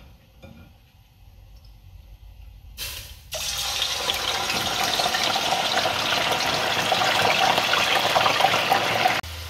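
Raw potato sticks going into hot sunflower oil in a deep pot, for the first fry of homemade chips. About three seconds in, the oil breaks into loud, vigorous sizzling and bubbling that keeps up steadily.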